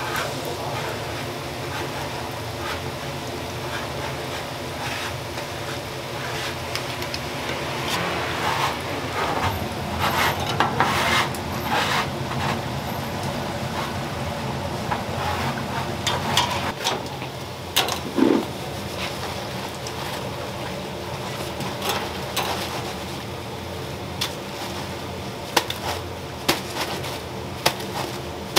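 Twisted glutinous-rice doughnuts sizzling and bubbling in a deep fryer of hot oil. Near the end come several sharp metal clinks as a wire-mesh skimmer scoops them out of the fryer.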